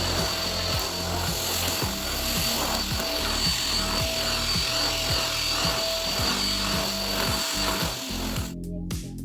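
Elgin 2-in-1 upright vacuum cleaner running with a steady whining hiss, switched off abruptly near the end. Background music with a steady beat plays throughout.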